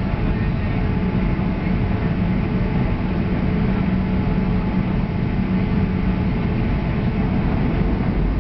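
Airliner engines running steadily, heard inside the passenger cabin as a constant hum with a low drone.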